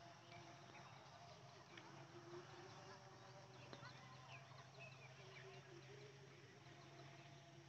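Near silence: faint outdoor ambience with a low steady hum and scattered faint chirps.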